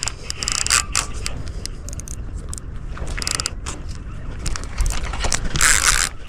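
Fishing gear being handled: irregular ratcheting clicks and scraping, with short hissing scrapes near the start and again near the end, over a low rumble of wind on the microphone.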